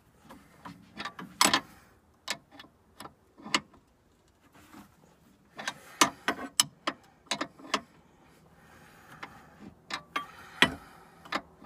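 Hand ratchet wrench clicking in short irregular runs of sharp metallic ticks as the nut on a sway bar link is run down its stud under a Jeep Cherokee XJ, nearly tight at the end of the threads.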